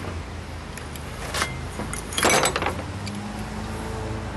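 Steel wrench clinking and clanking against the nut and housing on a lawn mower engine's flywheel as the nut is worked loose: a small clatter about a second and a half in, then a louder clank about two seconds in, over a steady low hum.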